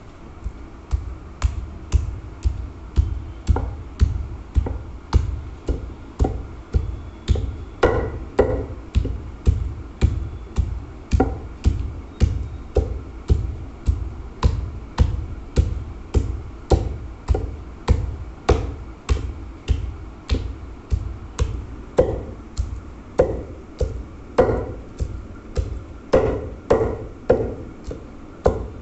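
Long wooden pestle pounding raw meat in a heavy stone mortar, a steady dull thud about twice a second, beating the meat into the smooth paste used for Kashmiri rista meatballs.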